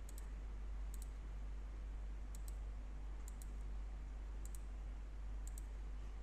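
Computer mouse clicking about five or six times, each click a quick press-and-release pair, over a steady low hum.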